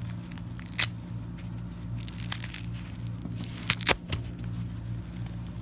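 Crinkly papery wrapping, a disposable diaper used as a face cover, rustling and crackling as it is handled and pulled off, with a few sharp crackles, the loudest pair near the end. A steady low hum runs underneath.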